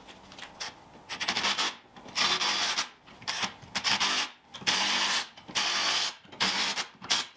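Cordless drill run in a series of short bursts against the rusty rear hub and stub axle of a Mk1 Golf-based car, each burst a harsh hiss of the tool working the metal.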